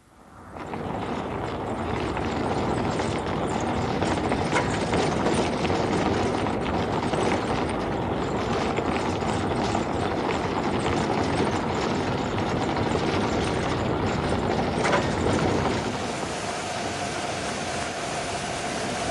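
Rover 800 prototype driven over a pavé test surface: a loud, steady rumble of tyres and suspension pounding over the cobbles, with a couple of sharper knocks. Near the end the rumble eases a little and a steady hum comes in.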